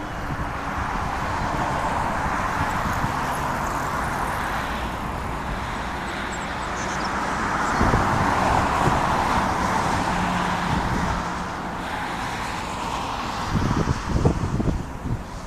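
Boeing 737-900ER's CFM56-7B turbofan engines at takeoff thrust: a steady jet roar that swells to its loudest partway through and then eases off. Gusts of wind buffet the microphone near the end.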